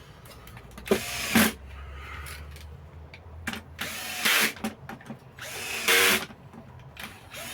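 A small handheld power tool motor whirring in several short bursts during reassembly of a Makita 4329 jigsaw.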